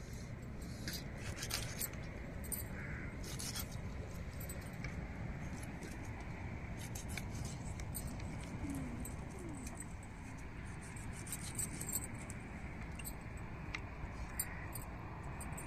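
Glass bangles clinking in short bursts on the wrists of hands scaling and cutting fish with a knife, over a steady background hiss.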